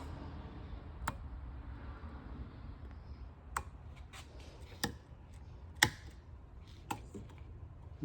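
A handful of separate sharp clicks and taps, about five over several seconds, the loudest a little before the last, over a low steady hum.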